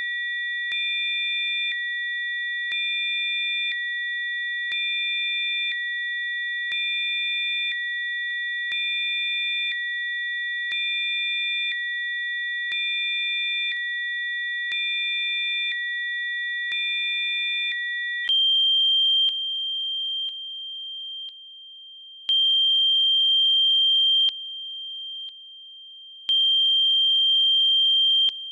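Electronically generated Rife-frequency sine tones: a steady chord of three high pure tones that swells slightly about every two seconds. About two-thirds of the way through it switches to a single high tone that steps down in loudness and back up every few seconds.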